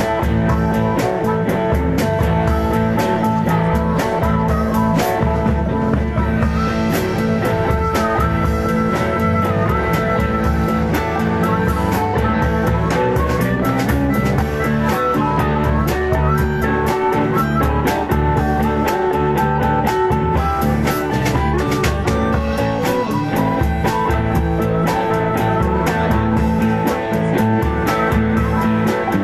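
Live blues band playing: guitar over a drum kit, with sustained and bent guitar notes and a steady drum beat.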